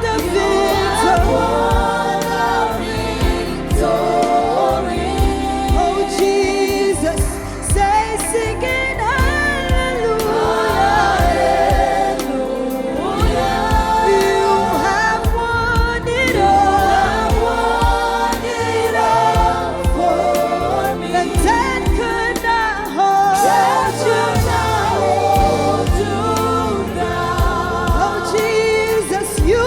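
Live gospel praise and worship music: a choir or group of singers with band accompaniment and a steady beat.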